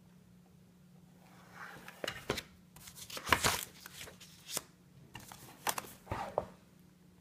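A page of a spiral-bound sketchbook being turned: a string of sharp paper rustles, flaps and clicks starting about a second and a half in, loudest around the middle.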